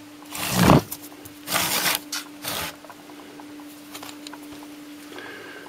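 A heavy microwave oven transformer being turned and slid across a wooden bench top: three short scrapes in the first three seconds, over a steady low hum.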